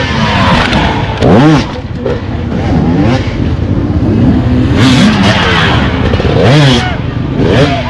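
Enduro dirt bike engine revved up and let fall again and again with sharp blips of the throttle, the highest revs about a second and a half in and again near the end.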